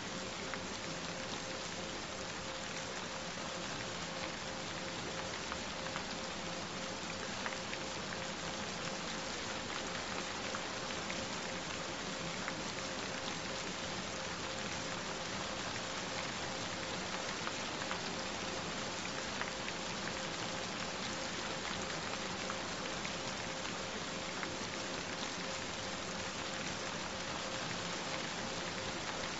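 Recorded steady rain falling, an even hiss of raindrops, with a single steady pure tone held a little above 500 Hz underneath it.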